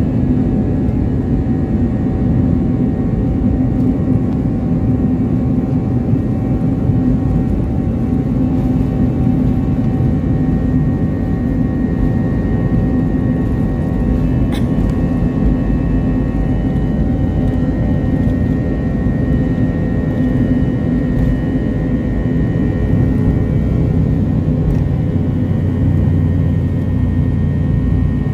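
Jet airliner engines at takeoff thrust, heard from inside the cabin during the takeoff roll: a loud, steady rumble with a high, steady whine. Near the end the low rumble grows stronger as the aircraft leaves the runway.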